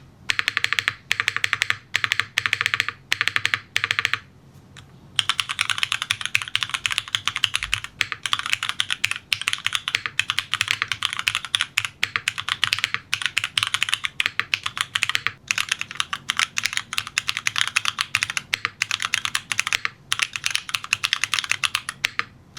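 LUMINKEY80 MK II mechanical keyboard being typed on: a few short bursts of quick keystrokes with brief pauses, then fast, nearly unbroken typing from about five seconds in, with only short breaks.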